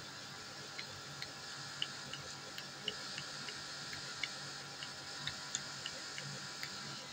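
A cat lapping milk from a dish: small, sharp tongue clicks at an uneven pace of about two a second, over a steady hiss.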